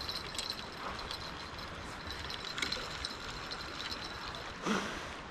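River water flowing steadily, with faint irregular ticking and one brief louder sound with a falling pitch about four and a half seconds in.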